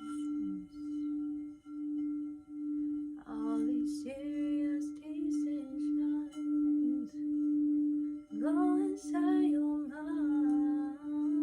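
A singing bowl being rimmed, holding one steady low tone that swells and fades about once a second. A voice sings or tones over it twice, about three seconds in and again from about eight seconds.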